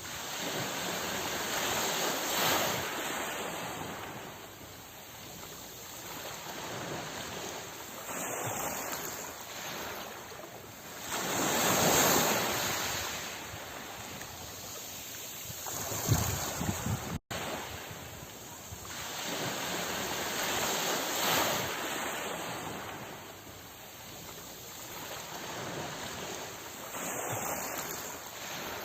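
Ocean waves surging and receding, a rushing wash of water that swells and fades every few seconds.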